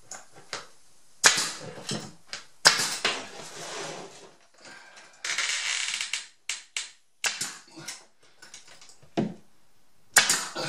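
Pneumatic 18-gauge brad nailer driving 1½-inch brads through a cedar shiplap board. There are three loud, sharp shots: about a second in, near three seconds, and near the end. Between them come about a second of steady hiss and lighter clicks and knocks.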